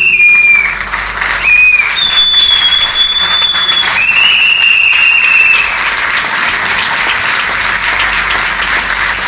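Audience applauding, with four loud, high whistles over the clapping in the first six seconds, the longest held about two seconds.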